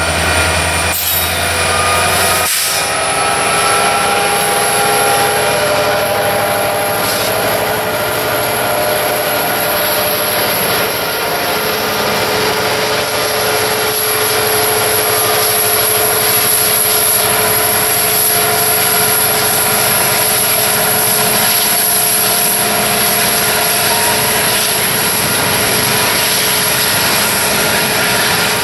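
Union Pacific SD70ACe diesel-electric locomotives passing close by under power, a loud steady running sound with several held tones and a high whine over it. Covered grain hopper cars roll past behind them.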